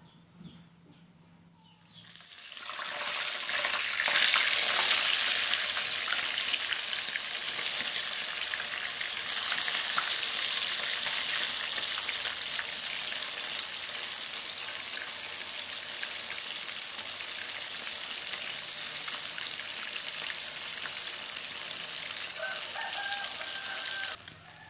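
Flour-coated fish fillets frying in hot oil in a frying pan: a loud, steady sizzle that starts about two seconds in and cuts off abruptly near the end. The fish is still cooking through.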